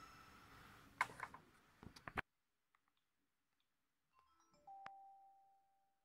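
Sony Ericsson K530i mobile phone: a ringtone preview dies away, keypad buttons click a few times and the phone's sound cuts off abruptly, then a faint chime of a few held notes sounds for about a second.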